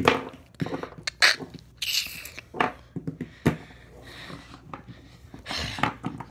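Irregular light taps, knocks and rustles of plastic toy animal figurines being moved over a table, together with the phone being handled close to the table.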